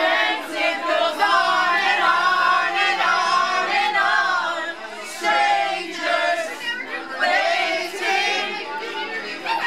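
A group of men and women singing loudly together, many voices at once, with some laughter mixed in.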